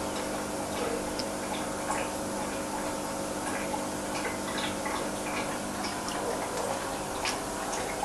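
Aquarium pump humming steadily, with small irregular ticks and drips of moving water over it.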